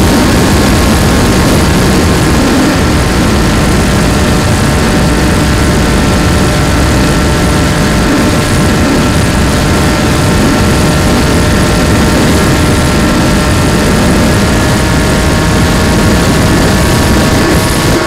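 A small FPV model aircraft's motor and propeller running at a steady throttle, an even whine, heard from the onboard camera with heavy rushing airflow noise over the microphone.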